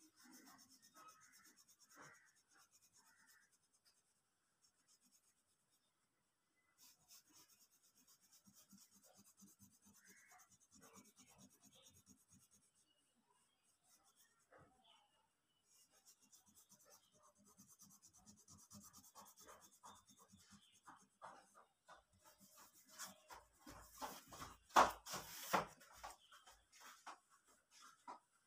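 A yellow colouring stick scratching over sketchbook paper in quick back-and-forth shading strokes. The strokes are faint, stop twice for a few seconds and are loudest near the end.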